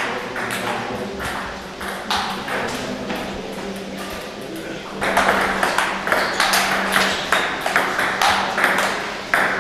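Table tennis balls being hit in play: a quick, irregular clicking of ball on bats and table, thicker and louder from about halfway through.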